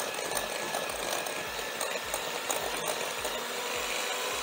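Electric hand mixer running steadily, its beaters creaming softened butter in a glass bowl.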